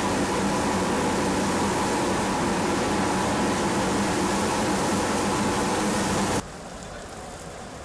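Street sweeper truck running with a steady loud mechanical drone as its rotating side brush sweeps through floodwater. It cuts off suddenly about six seconds in, leaving a quieter steady hiss.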